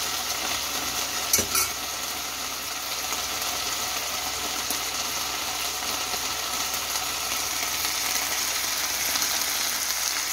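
Beef cubes, onion and bell pepper in oyster sauce sizzling steadily in a stainless steel frying pan. About a second and a half in come two quick metallic knocks of the tongs against the pan.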